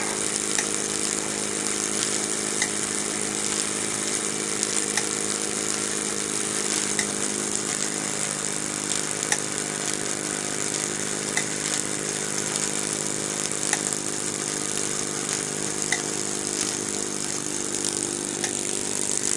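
Lutz Hielscher miniature live steam engine running steadily, driving its dynamo and trip hammers through belts and reduction gearing: a continuous hiss and whir over a steady hum, with faint ticks about every two seconds.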